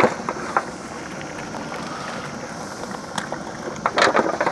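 A big pot of seasoned water at a rolling boil, giving a steady rushing noise, with a few sharp splashes near the end as squeezed lemon halves are dropped in.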